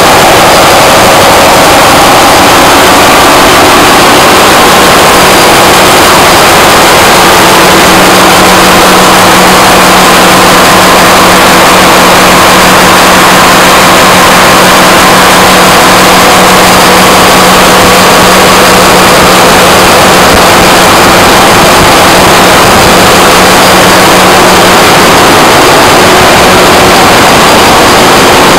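Loud, unvarying machinery noise of a container ship's engine room, with running diesel generator sets among it, and a steady hum that fades out near the end.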